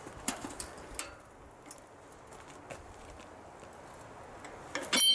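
Steel hand-lever bar shear being handled: a few scattered light knocks and clicks, then near the end a loud, ringing metal clank.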